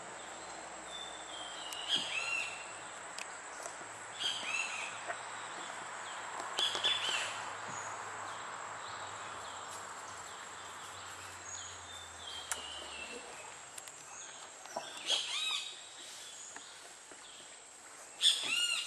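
Birds calling: short bursts of arching, ringing calls that come every few seconds, the loudest one near the end, over a steady high thin whine.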